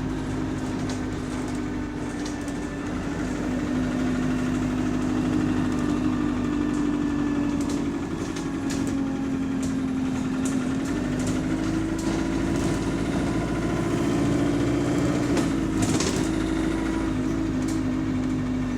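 City bus engine and drivetrain running, heard from on board: a steady drone whose pitch rises slightly about eleven seconds in and eases back near the end, with scattered small rattles and clicks.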